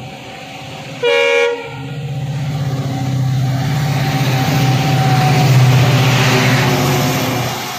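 WDP4D diesel locomotive with an EMD 16-cylinder two-stroke engine sounds a short horn blast about a second in. Its engine then grows louder as it accelerates past hauling its train, with wheel and rail noise at the loudest point, and the sound fades near the end.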